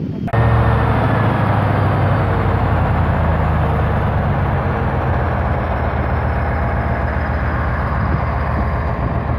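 Double-decker coach's diesel engine running steadily, cutting in abruptly just after the start.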